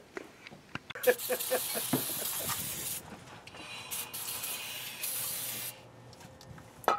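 Aerosol brake cleaner sprayed onto a truck's new brake rotor and caliper in two long hissing blasts, the second beginning about a second after the first stops.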